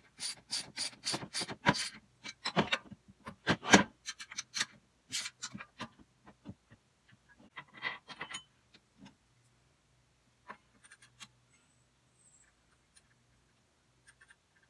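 Tree stand and climbing stick parts being handled and fitted together during assembly: a quick run of clicks, knocks and rustling in the first five seconds, then only occasional taps.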